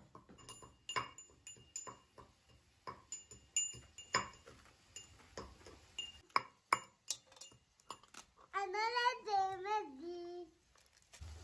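A small brass mortar struck with its pestle in irregular metallic clinks, one or two a second, each ringing briefly. Near the end, a young child's high voice sings a short phrase for about two seconds.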